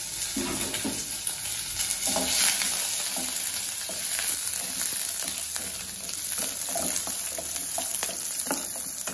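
Halved shallots sizzling in hot oil in a nonstick pan, the tempering for sambar. A wooden spatula stirs them and scrapes and taps against the pan again and again.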